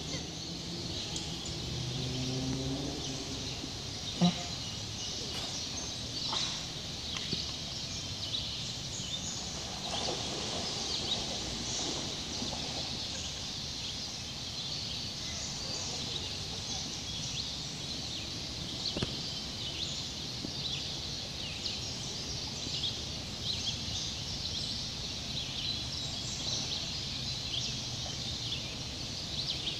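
Steady rush of a shallow river running over rocks, under dense high-pitched chirping of birds and insects; a single sharp knock about four seconds in.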